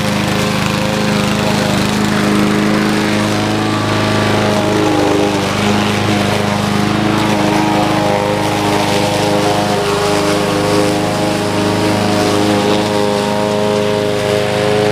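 Cub Cadet 21-inch self-propelled mower's 159cc engine running steadily, its pitch wavering slightly as it cuts through grass about a foot and a half tall.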